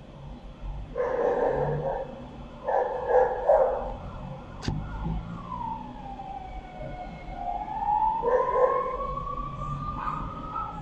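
A siren wailing: one long tone that falls in pitch and then slowly rises again. Three short, loud bursts of noise come over it, the loudest sounds here, and there is a single sharp click in the middle.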